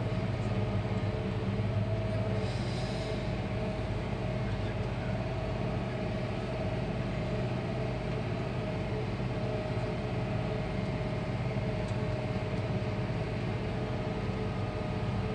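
Challenger tractor's AGCO Power 6-litre diesel engine running steadily under heavy load at about 2000 rpm, heard from inside the cab, as it pulls a soil finisher up a hill.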